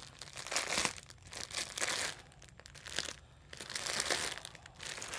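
Plastic mailer bag crinkling and rustling in irregular crackles as it is cut and pulled open by hand, with a short lull about three seconds in.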